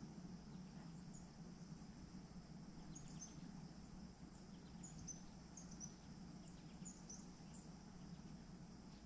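Near silence: faint outdoor ambience with a low steady hum and scattered short, high chirps, most of them from about three seconds in.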